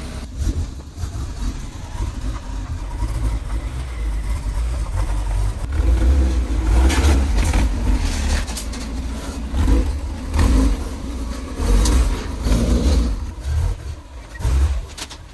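A Porsche 944's four-cylinder engine running and revving in pulses as the car is driven up onto a car transporter's steel bed, with several sharp knocks in the second half.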